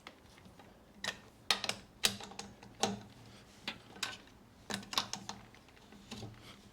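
Socket wrench clicking and clinking on the front wheel nuts as they are tightened and checked for tightness, a string of separate sharp metal clicks at an uneven pace.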